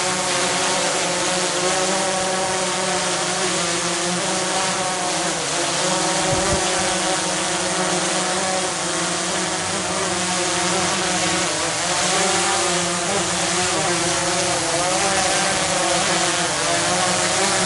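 DJI Phantom 3 Advanced quadcopter's motors and propellers buzzing steadily in flight, the pitch wavering slightly up and down as the drone adjusts its position.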